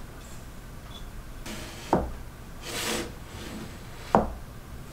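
Small wooden boards being handled and set down on a cutting mat: a knock about two seconds in, a short rub or slide a moment later, and a sharper knock near the end as a steel square is set against the glued wood.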